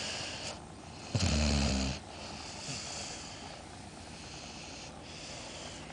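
Snoring: one loud, rasping snore on an in-breath about a second in, with quieter hissing breaths around it.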